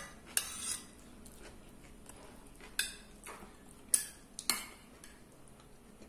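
Metal spoon clinking and scraping against a ceramic plate: about half a dozen separate sharp strikes, each with a brief ringing.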